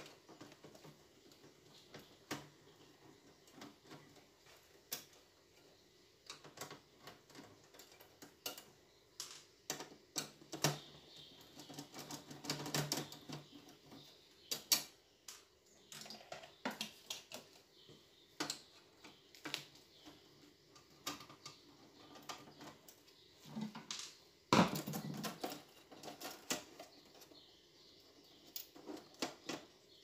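Irregular clicks, taps and clatter of a screwdriver and loose screws on the sheet-metal cover of a stereo's disc drive as it is unscrewed and handled, with heavier clattering about halfway through and again near the end.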